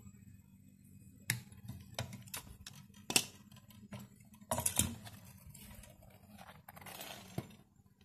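Sharp clicks and metallic clinks of hand tools on a refrigerator's copper process tube: cutting pliers snipping the charging line where it is pinched off by locking pliers, with tool handling in between. The loudest click comes about three seconds in, a cluster of clicks follows about a second and a half later, and there is a stretch of rustling near the end.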